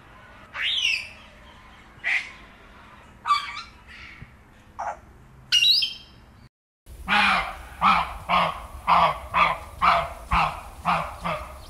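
White cockatoo squawking: about five short, harsh calls in the first six seconds. After a brief break, a different call repeats evenly about twice a second, some ten times.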